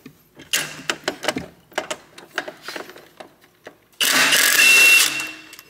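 Clicks and knocks as a Torx socket is fitted onto a torque converter bolt, then a cordless impact wrench hammering for about a second, loosening the Torx 50 bolt.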